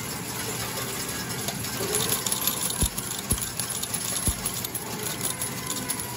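Coin-pusher medal game: metal medals clicking and clinking on the pusher field over the steady hum of arcade machinery, with three low thumps between about three and four and a half seconds in.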